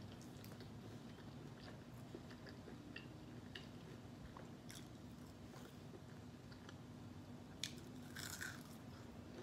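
Faint chewing and small wet mouth clicks while eating fried chicken, then a sharp crunchy bite into a crisp fried chicken wing near the end.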